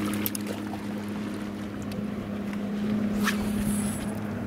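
A steady low electric hum from the bass boat's equipment. About three seconds in comes a quick swish of a cast, then a brief high whir as the baitcasting reel's spool pays out line.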